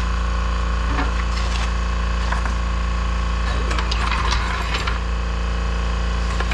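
A steady mechanical hum, with intermittent scraping and knocking over it that is busiest about four seconds in.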